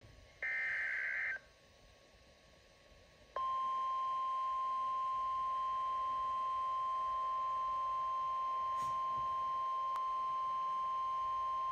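A Midland weather alert radio's speaker plays a short burst of buzzy SAME digital header tones, about a second long. After a quiet gap of about two seconds comes the steady, single-pitch NOAA Weather Radio warning alarm tone, which starts about three seconds in and holds without a break. The tones signal an incoming severe thunderstorm warning broadcast.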